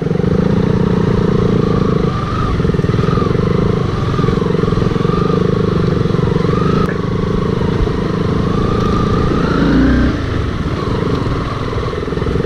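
Sport motorcycle engine running steadily at low speed on a rough dirt trail. The engine note dips and picks up again briefly about two seconds in and again near the ten-second mark as the throttle is eased and reopened.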